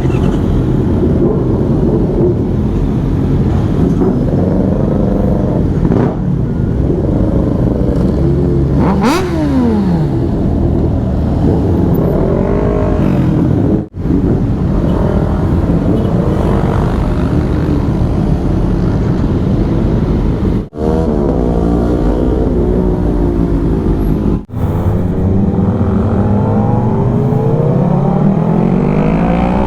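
Motorcycle engine under hard acceleration, its pitch climbing through each gear and dropping at the shifts, over and over. The sound breaks off for an instant three times.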